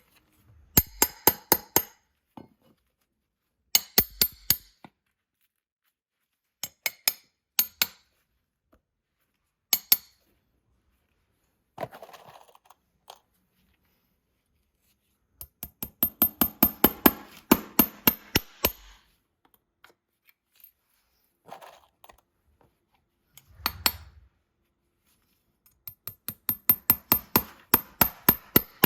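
Farrier's hammer striking metal in quick runs of sharp, ringing taps, several a second, with short pauses between the runs. The longest runs come about a third of the way in and near the end.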